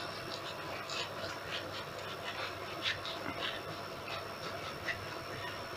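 Oil sizzling steadily in a cast-iron kazan of frying meat, onion and carrot, with scattered small pops and crackles.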